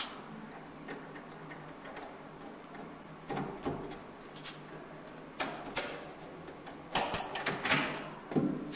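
Key clicking and rattling in a door lock as the door handle is worked, in several short bursts, the longest and loudest near the end.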